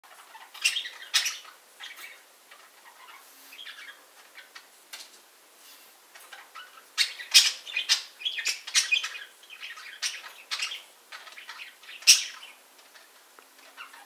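Budgerigars chirping and squawking in short, sharp calls that come in clusters, loudest about a second in, again from about seven to nine seconds in, and once more at about twelve seconds.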